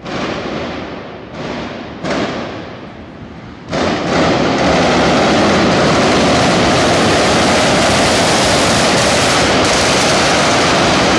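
Machine guns mounted on the roofs of chasing cars, firing blanks: very loud. There are a few short bursts first, then about four seconds in one long unbroken stretch of rapid fire that holds at full loudness.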